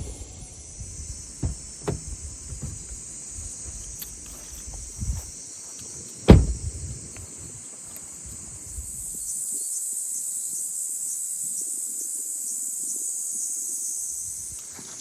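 Insects chirring steadily in a high band, growing louder about two-thirds of the way through. A few short knocks come in the first half, the loudest about six seconds in.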